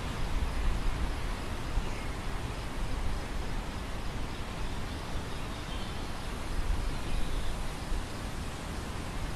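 Wind moving through a field of grain, a steady rustling hiss, with gusty low rumble of wind buffeting the microphone.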